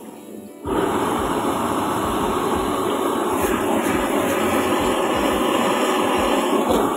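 Gas wok burner roaring steadily at full flame under a wok of frying noodles; the roar comes up suddenly under a second in. A few light taps of the spatula on the wok.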